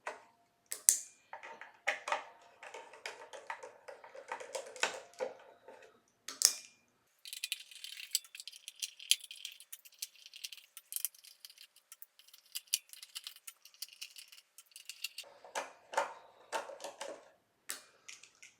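Small metal parts and tools clicking and rattling during hands-on work on an electric guitar, as the pickguard screws are taken out and the pickguard is lifted off. A stretch of faint high hiss with small ticks runs through the middle.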